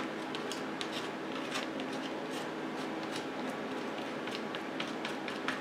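Fingers pressing and rubbing the edges of a painting down onto a glue-coated board: faint, scattered small ticks and rubbing over a low steady hum.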